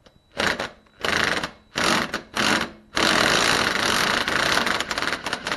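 Impact wrench hammering on the motorcycle's rear axle nut, loosening it. It goes in four short bursts, then one long run of about three seconds as the nut comes free.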